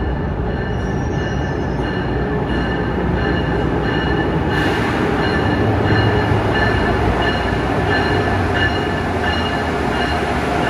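Amtrak Acela train pulling in along the platform and passing close by: a steady rumble with a high squeal that comes and goes, growing louder about four and a half seconds in as the train nears.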